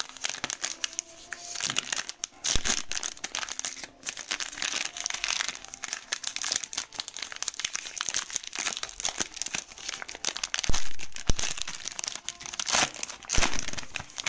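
Plastic cello-pack wrapper of a Panini Optic trading-card pack crinkling and tearing as it is peeled open by hand, a dense run of crackles with the loudest in the last few seconds.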